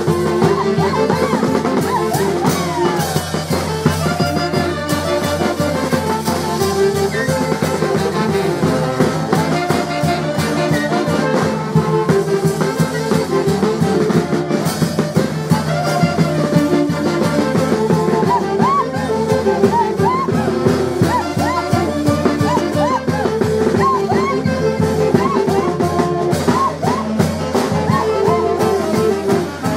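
A street brass band, with wind instruments over a bass drum and snare drum, playing a lively dance tune with a steady, driving beat.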